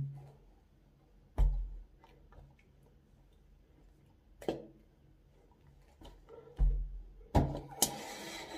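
Several dull knocks and handling noises from hands and sleeves moving close to the microphone during signing: one about a second and a half in, one about four and a half seconds in, two close together near the end, then a short rustle.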